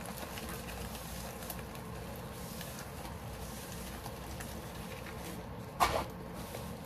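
Quiet handling of a rolled-up diamond painting canvas on a table over a steady hiss, with one sharp knock near the end.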